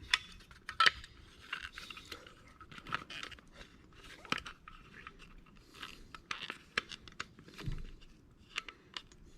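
Squeegee pushing and rubbing over 3M vinyl wrap film on a door handle to work out the slack. It makes irregular crackly scrapes and sharp little clicks.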